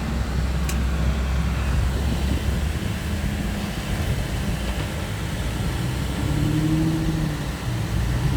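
2009 Aston Martin DB9's V12 engine pulling the car away under acceleration. The engine note is steady at first, then climbs, drops briefly at a gear change near the end, and climbs again.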